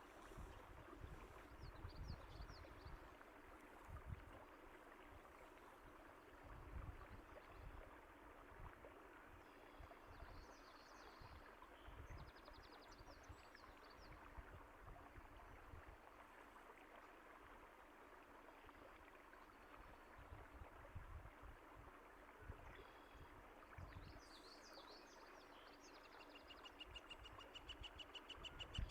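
Faint running water of a stream, with scattered short bird chirps. A fast, evenly repeated trill starts near the end.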